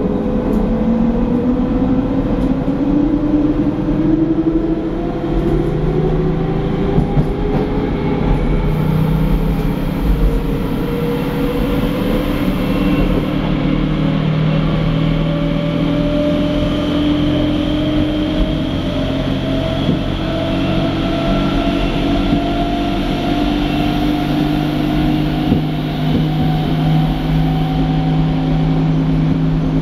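Berlin S-Bahn class 480 electric train heard inside the passenger car: the traction motor whine rises slowly in pitch as the train gathers speed, over rolling rumble and a steady low drone. The uploader finds the drone strange.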